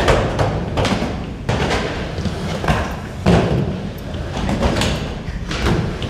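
Skateboard wheels rolling over indoor wooden ramps, with a series of sharp thuds and slaps from boards hitting and landing on the ramp surfaces.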